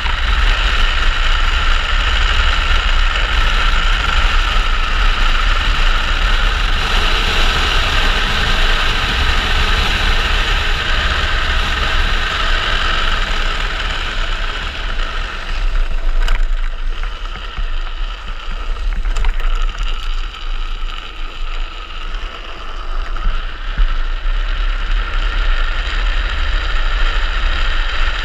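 Wind buffeting the microphone together with the rolling noise of a speed trike's wheels on asphalt at speed on a downhill run. The high rushing noise eases off for a while in the middle, with a couple of brief clicks, then picks up again.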